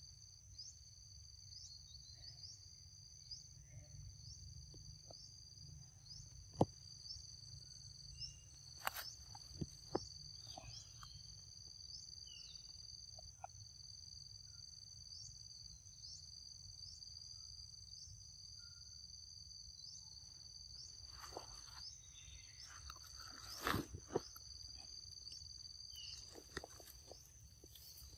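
A steady, shrill insect chorus in two high tones with a regular ticking pulse, over a low rumble. A few sharp clicks and knocks come through, the loudest about six seconds in and again a few seconds before the end.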